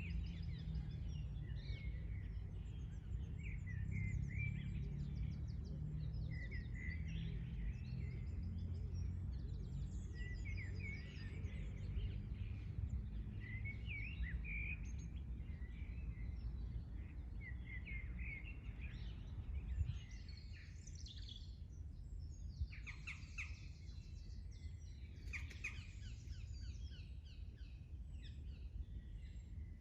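Several songbirds singing and chirping over a steady low rumble. About twenty seconds in, the rumble falls away and a different set of sharper, quicker calls takes over.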